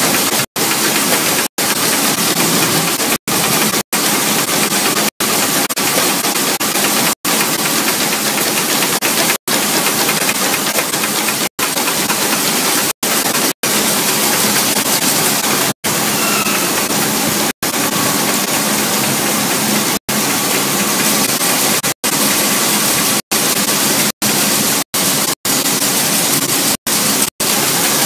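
Loud, constant machinery noise of a CNC brush tufting machine running, a dense hiss-like racket with no clear rhythm, broken by brief dropouts to silence about once every one to two seconds.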